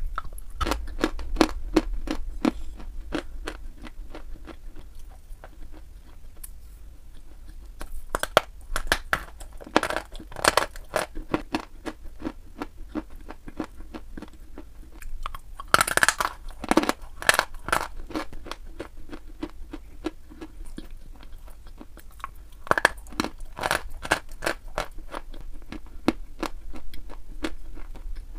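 Dry white chalk blocks being bitten and chewed: a steady run of small crisp crunches, broken by several louder clusters of sharp bites.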